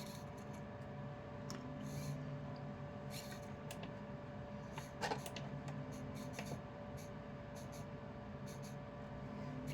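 Faint clicks and short scratching noises of small plastic electronics and connector wires being handled, over a steady low hum.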